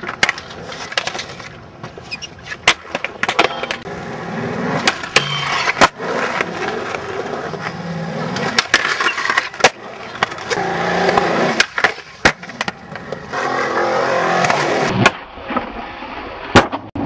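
Skateboard wheels rolling on concrete in several runs, the rolling noise swelling and fading, cut through by sharp pops and cracks of the board being snapped and landing on tricks, about a dozen times.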